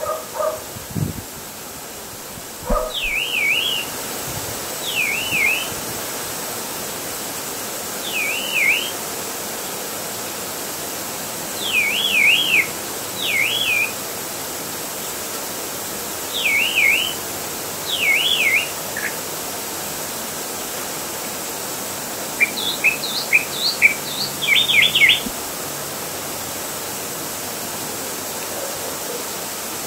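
A small songbird singing short, quickly warbled phrases every two to four seconds, then a faster run of short chirps in the later part, over a steady background hiss.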